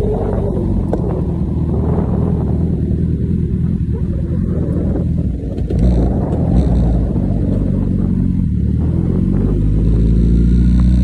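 Honda CB1000R's inline-four engine running as the motorcycle rides along at steady speed, the engine note shifting slightly with the throttle, with wind rushing over the microphone.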